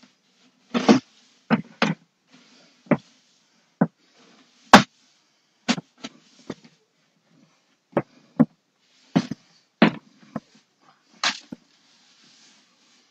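A string of sharp knocks and thuds at irregular intervals, about fifteen in all, from things being handled and set down during floor cleaning.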